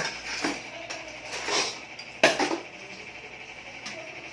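Spoons and forks clinking and scraping against plates while eating: a few sharp clinks and a short scrape, the loudest clink a little past two seconds in.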